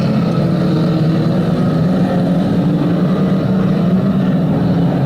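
Engines of several 2-litre banger race cars running together at a steady pitch, with no single crash standing out.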